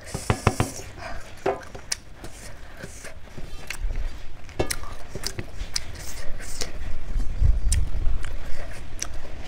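Close-miked eating sounds: chewing with wet mouth clicks and scattered sharp ticks. A low rumble swells about four seconds in and again near the end.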